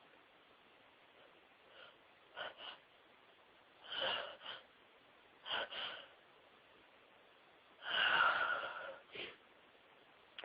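A woman's sneeze build-up: a run of short, catching, wheezy gasps, irregularly spaced, the longest and loudest about eight seconds in.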